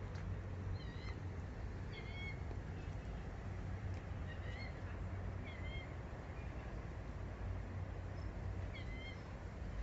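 A bird calling over and over with short, slurred, chirping notes, roughly one call a second with a few pauses, over a steady low rumble.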